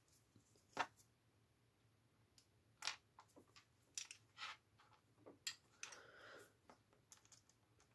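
Faint, scattered clicks and taps of a screwdriver and small parts against a plastic model chassis, with a short scrape about six seconds in.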